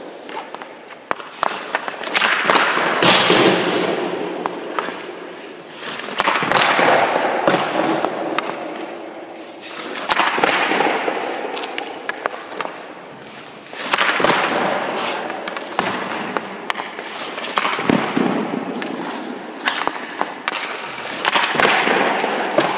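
Hockey goaltender's skate blades and pads scraping and sliding across the ice as he pushes and recovers in the crease, in about six swells of scraping roughly four seconds apart. Sharp clicks and knocks of stick and puck are scattered through it.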